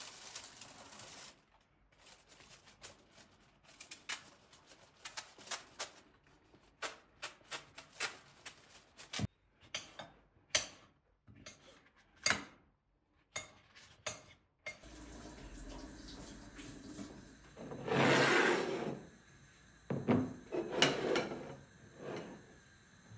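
Kitchen handling sounds: a string of light clicks, taps and knocks of dishes and utensils being moved. Later, over a steady low hum, come two short rushing bursts, the first about a second long.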